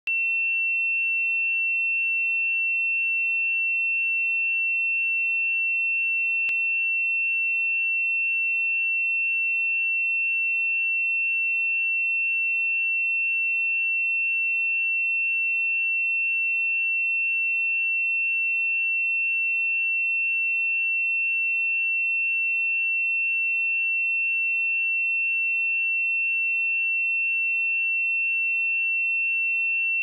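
Pure 2701 Hz sine-wave test tone: one steady high-pitched tone at constant level, with no change in pitch.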